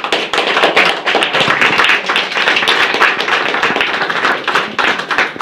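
Audience applauding: many hands clapping together, steady and loud throughout.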